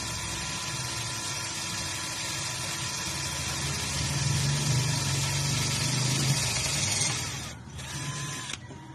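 INGCO 12 V cordless drill running as its bit drills through a thin sheet, louder from about the middle, then dropping off and stopping near the end.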